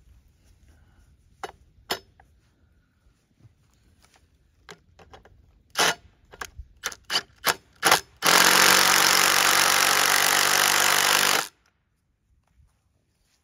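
Cordless impact driver driving a hex-head lag bolt through a galvanized railing holder into a wooden post. A few short trigger bursts come first, then about three seconds of continuous impact hammering as the bolt runs down, stopping abruptly.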